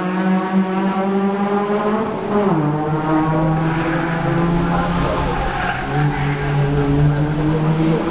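Race car engines running hard on a circuit, a steady engine note that drops sharply in pitch about two and a half seconds in, then holds and climbs slowly again.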